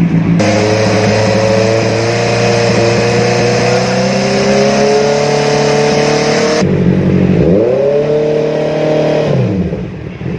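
Big-bike motorcycle engine revved and held at high revs while standing, the way it is run for an exhaust noise check. Its pitch creeps slowly upward for several seconds; after a cut, a second rev climbs quickly, holds for about two seconds, and drops back toward idle near the end.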